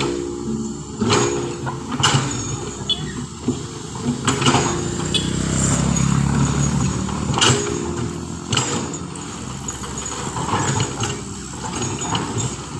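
Heavy vehicle engine running, swelling louder in the middle, with sharp knocks and clanks and people's voices in the background.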